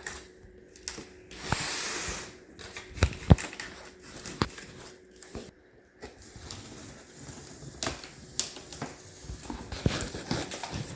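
Cardboard box being opened by hand: a long tearing rasp about two seconds in, then rustling and handling of cardboard and packing with scattered knocks and clicks, the sharpest a little after three seconds.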